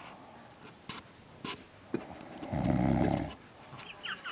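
A woman passed out drunk, snoring heavily: one loud snore about two and a half seconds in, lasting about a second, with a few faint clicks before it.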